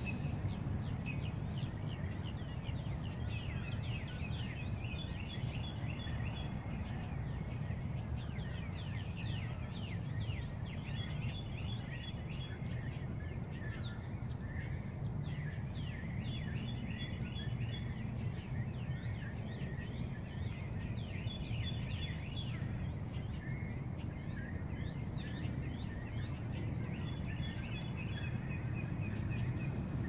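Dense chorus of many birds calling, with constant short chirps and a rapid series of repeated notes that comes back roughly every five seconds, over a steady low rumble.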